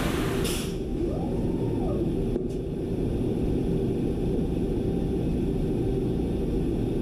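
Machining centre running with a steady low rumble; a hiss, like coolant or air spray, cuts off about half a second in.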